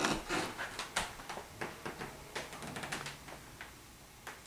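Footsteps on a hardwood floor: an irregular run of light taps and clicks that thins out toward the end.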